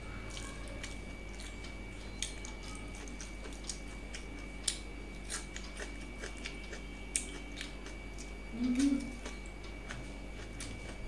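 Close-up eating sounds of a person eating rice and curry by hand: chewing and lip smacks, with scattered irregular clicks. A short low hum comes about nine seconds in.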